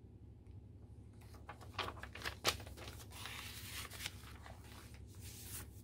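Paper pages of a handmade junk journal being turned and handled: a few sharp paper snaps and taps, then soft rustling and crinkling, over a faint low steady hum.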